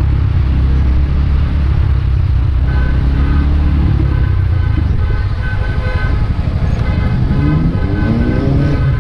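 Motor scooter engine running under way with wind and road noise, its pitch rising as it speeds up near the end. From about three seconds in, a high tone sounds on and off over it.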